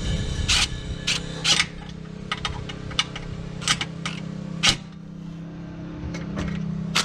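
Plastic underbody panel clips being pushed and snapped into place: a run of sharp clicks and knocks at irregular intervals, the loudest about two-thirds of the way through, over a steady low hum.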